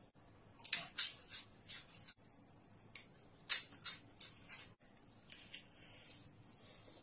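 Close-up crunching and chewing of crispy fried food: a string of sharp crackles over the first four seconds, then softer ticks.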